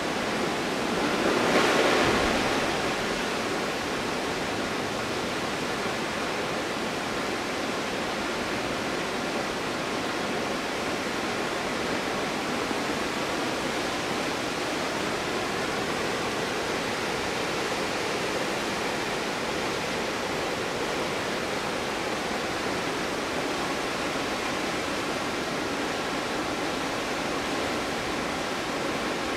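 Winter waterfall: a steady rush of falling water, swelling louder for a second or so near the start.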